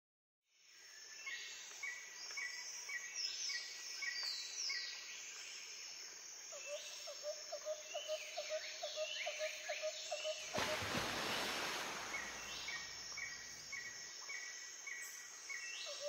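Cockatiels chirping and whistling: runs of short repeated chirps and falling whistles, joined about halfway through by a lower rapid chirp at about four a second. A rush of noise lasting about two seconds comes around two-thirds of the way through.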